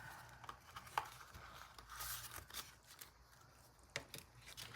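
Faint rustling and a few light clicks as a small box is opened and the packaging inside is handled.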